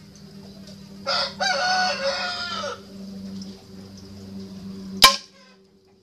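A rooster crows once, one long call starting about a second in. About five seconds in comes a single sharp crack, the loudest sound: a shot from a PCP air rifle, its pellet striking the plywood target.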